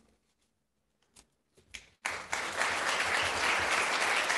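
Audience applauding: the clapping starts suddenly about halfway through, after a couple of seconds of near quiet with a few faint clicks, and then carries on steadily.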